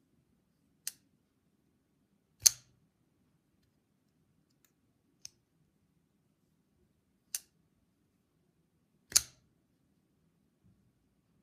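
Todd Begg Steelcraft Kwaiken folding knife being flipped open and shut by hand: sharp metallic clicks of the blade snapping into place, in two rounds, with the two loudest snaps as the blade locks open.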